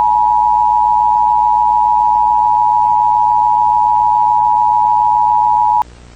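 Emergency Alert System attention signal: two steady high tones sounded together and held at full volume, cutting off suddenly near the end.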